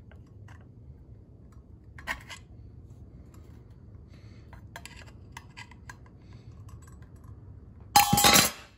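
A screwdriver prying a tachometer needle off its shaft: a few faint small clicks and scrapes, then a sharp metallic clink with a short ring near the end as the needle pops free.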